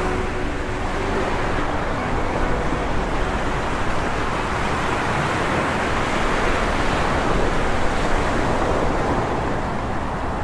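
Ocean surf, a steady rushing of breaking water that swells a little toward the middle.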